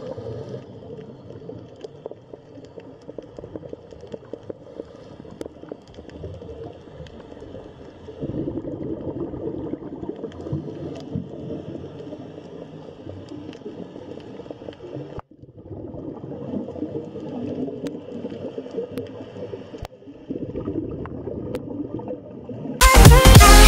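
Underwater ambience picked up by a camera: a low rushing, gurgling murmur with scattered faint clicks, its level shifting at each cut. Near the end, loud electronic music starts suddenly.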